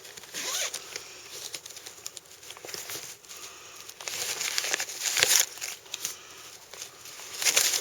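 Irregular rustling and crinkling as belongings are handled and shifted around, in louder patches a few seconds apart.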